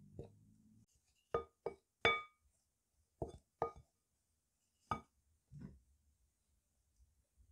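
A wooden spoon knocking against the side of a glass mixing bowl while stirring a dry flour mixture, about eight irregular knocks, each leaving a short ringing of the glass.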